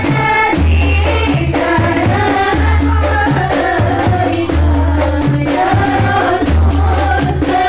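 Rebana frame-drum ensemble with women singing in unison into microphones, amplified through a sound system. Deep, booming drum beats recur every second or two under the sung melody, with lighter drum hits between them.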